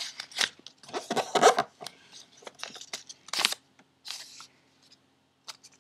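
A small square of paper being folded and creased by hand, rustling and crinkling in irregular bursts, loudest about a second and a half in and again about three and a half seconds in.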